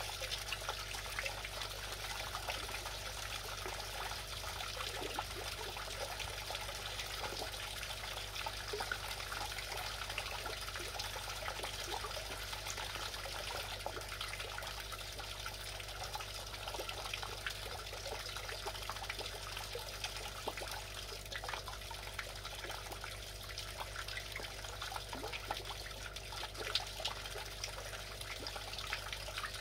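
Oase Water Starlet pond fountain: its jets of water falling back onto the pond surface in a steady splashing and trickling, with many small droplet patters.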